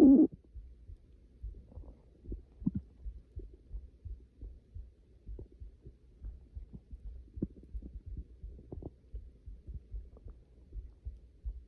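Hungry stomach, recorded close against the belly. A loud tonal growl cuts off just at the start, followed by faint, irregular low gurgles and soft pops.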